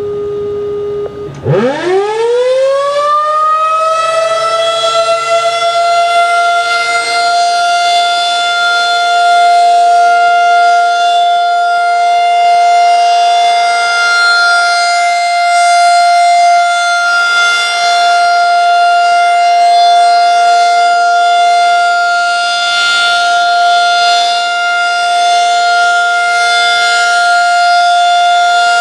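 Federal Signal 2001-SRN electromechanical tornado siren starting up, after a steady tone that stops about a second in: its pitch climbs quickly and levels off into a loud, steady wail. The sound swells and fades slowly as the siren head rotates.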